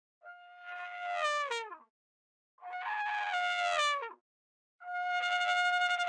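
Elephant trumpeting three times. Each call lasts about a second and a half, holds a steady pitch and falls at the end.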